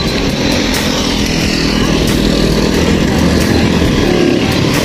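Motorcycle engines running on the road close by, under a steady rumble of wind on the microphone of a moving bicycle.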